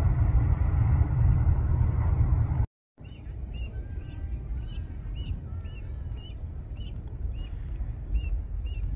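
A freight train rolling past with a low, steady rumble, which cuts off abruptly just under three seconds in. Then goslings peep in short, high, regular calls, about two a second, over a faint low rumble.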